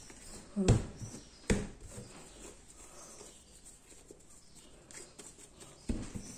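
Bread dough being rounded into balls by hand on a stainless steel counter: soft rubbing and patting, with dull thumps as the dough is pressed down onto the metal, two close together near the start and one near the end.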